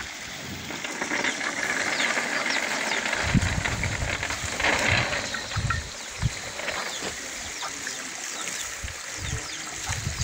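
Water running steadily from a hose into a small coffee pulper's hopper while ripe coffee cherries are poured in from a sack.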